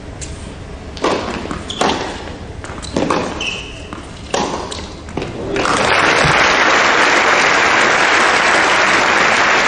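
Tennis ball struck back and forth by rackets in a short rally, sharp hits about a second apart, then the crowd applauding steadily once the point is won.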